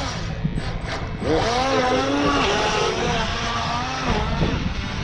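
Two radio-controlled boats running on the water, their motors' pitch rising and falling in swells as the throttle changes, over a steady rushing hiss.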